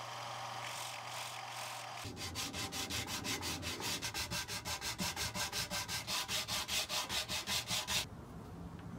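For about two seconds a small wooden wedge is held against a running belt sander, with a steady motor hum. Then the wedge is rubbed back and forth by hand on the sander's abrasive belt, a rasping scrape at about five strokes a second, which stops about a second before the end.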